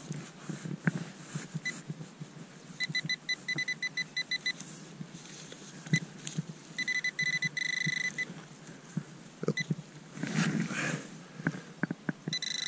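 Handheld metal-detecting pinpointer beeping as it is probed through a clump of dug soil: two runs of rapid pulsed beeps, the second running into a steady tone, the pinpointer closing in on the buried metal target. Scraping and crumbling of soil under gloved hands between the beeps.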